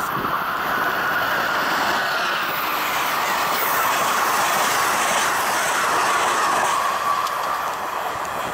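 Amtrak Northeast Regional train, a Siemens ACS-64 electric locomotive hauling Budd Amfleet coaches, passing close at speed: a steady noise of wheels running on the rails that eases slightly as the rear cab car goes by near the end.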